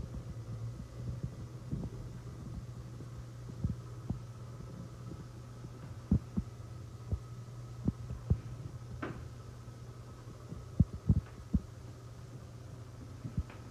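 A steady low hum with irregular soft thumps and knocks scattered through it, a couple of the sharpest about three quarters of the way in: handling noise from a handheld camera.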